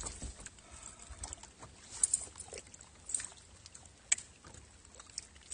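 Faint outdoor background noise broken by a handful of light, sharp ticks and taps, the loudest about two seconds in and about four seconds in, from an angler working a baitcasting rod and reel on the deck of a bass boat.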